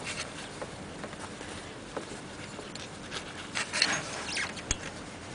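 Screwdriver wrapped in a rag scraping and rubbing in the grooves of a ribbed belt pulley, irregular scratching with light clicks and a sharper click near the end. The pulley grooves are being cleaned of grit and old belt residue, dirt the owner blames for the belt squeal.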